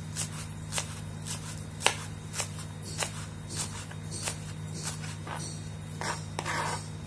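Kitchen knife slicing thin rounds off a spring onion stalk, each stroke a sharp tap on the cutting board about twice a second, over a steady low hum.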